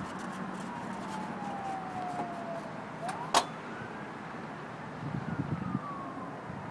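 Electric motor whine of a driverless pod car, falling in pitch over about three seconds, then, right after a sharp click, rising and falling again.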